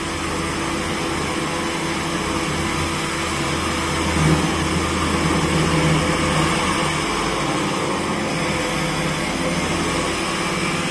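CNC machining center milling a block with a 50 mm face-mill head under flood coolant: a steady cutting and spindle noise with coolant spray. The cutter is ramping into the cut at a slow feed and runs smoothly, without chatter.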